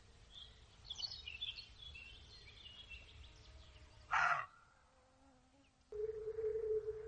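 Small birds chirping, then a single short, harsh bark from a roe deer buck about four seconds in. About six seconds in, a steady droning tone begins.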